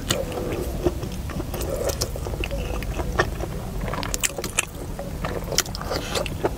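Close-up chewing and wet mouth clicks of a person eating soft stir-fried food, many short sharp clicks scattered throughout, over a steady low rumble.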